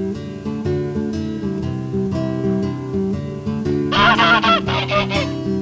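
Light plucked-guitar background music runs throughout. About four seconds in, a cartoon stork gives a honking, wavering call lasting just over a second.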